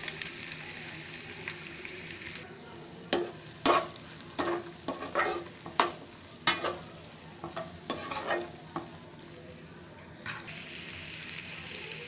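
Chopped red onions sizzling in hot oil in a pan. A spatula then stirs them, giving a run of about a dozen quick scrapes and knocks against the pan from about three seconds in until about nine seconds in.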